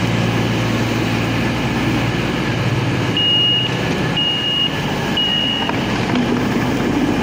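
Three short high beeps from a Class 221 Voyager's passenger door as its open button is pressed, each about half a second long and a second apart. Underneath runs the steady hum of the train's idling underfloor Cummins diesel engines.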